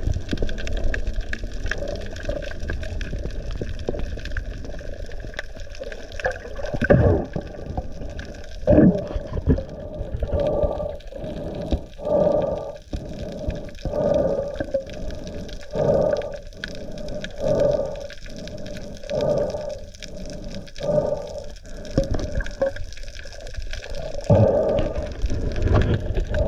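Water noise picked up by an underwater camera with a swimmer. It starts as a low, steady rumbling wash. From about ten seconds in it becomes a regular swishing pulse, roughly one every second and a half to two seconds.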